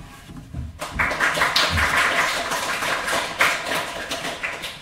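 Audience applause: many hands clapping together, starting about a second in and thinning toward the end.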